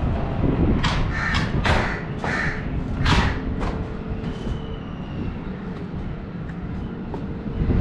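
Crows cawing, a run of about six harsh calls over a steady low rumble.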